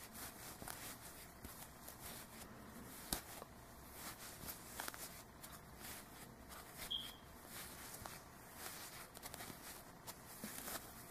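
Faint rustling and small scattered clicks of handling: polyester stuffing being pushed into a crocheted hat with a crochet hook and fingers.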